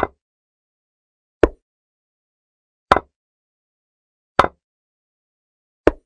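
Chess board software's move sound effect: a short, sharp click each time a piece moves, five times about a second and a half apart, with dead silence between them.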